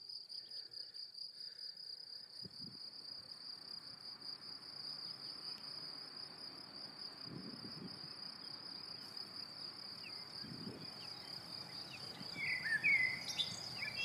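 Field cricket singing: a steady, finely pulsing high chirring that goes on without a break. Near the end a bird gives a few short falling calls.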